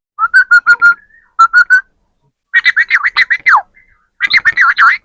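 Parrot calling in high-pitched bursts of chatter and whistle-like notes: a run of quick repeated pulses, then several short phrases, one of them ending in a long falling whistle.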